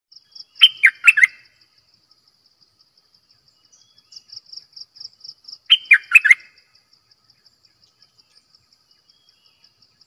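Caged decoy bulbul ('nok dok taeng') calling. It gives two short bursts of about four quick, loud, falling whistled notes, one about a second in and another about six seconds in. Behind them runs a fast, steady, high-pitched pulsing trill.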